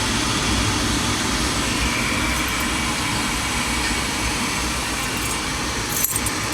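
2003 Lennox Signature Collection 80% gas furnace running steadily with its burners lit: a constant rushing hum with a faint high whine from about two seconds in. A brief click near the end.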